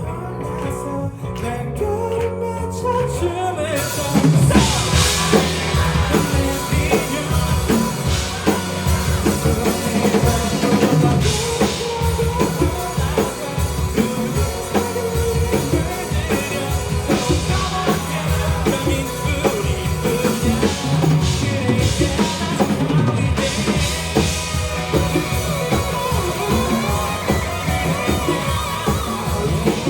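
A live rock band playing a song, with drum kit, bass, guitar and singing. It opens sparse for about four seconds, then the drums come in and the full band plays on.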